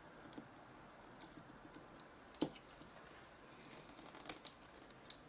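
Scattered sharp clicks and taps of small metal and plastic parts as a load motor is worked into a camcorder tape-deck mechanism by hand. Two clicks stand out as louder, about two and a half and four and a half seconds in.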